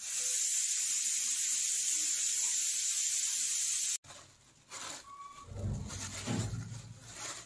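A loud, steady hiss that cuts off abruptly about four seconds in, followed by quieter low rumbling and knocks.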